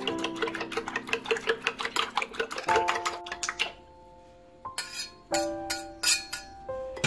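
Metal spoon beating an egg in a ceramic bowl, a rapid run of clinks against the bowl, over background music. The clinking stops about three and a half seconds in, and a few scattered knocks follow near the end.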